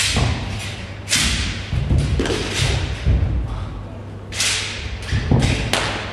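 Footwork of a wushu broadsword routine: repeated thumps of feet stamping and landing on the competition mat, mixed with sharp swishes as the broadsword is swung.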